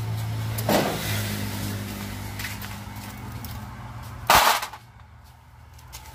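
Loose screws rattling and clattering onto a metal tray, loudest in one sharp clatter about four seconds in, over a steady low hum.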